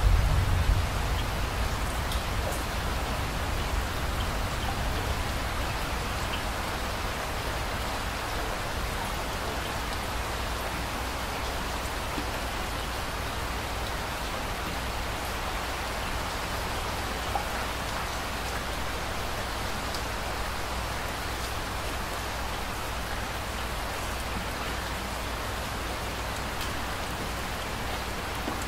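Steady rain falling: an even hiss of drops with faint scattered ticks. A low rumble in the first second or so fades out.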